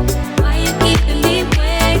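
Background music with a steady, heavy beat and deep bass, and a sung or synth melody over it.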